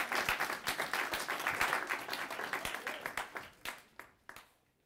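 Audience applauding, thinning out to a few scattered claps and stopping near the end.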